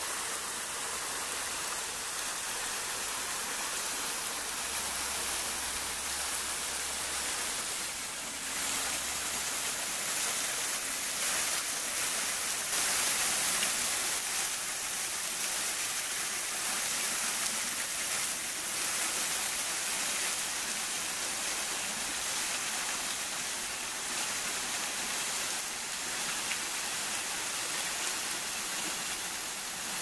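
A small waterfall, a thin stream of water falling down a rock face and splashing onto stones, making a steady hiss of falling water.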